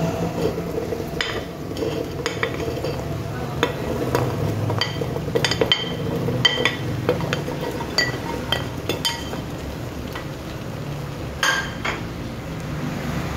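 Shallots being scraped from a ceramic plate into a clay pot with a ladle: a run of irregular light knocks and clinks of the ladle on the plate and pot, with the onions tumbling in, over a low steady hum.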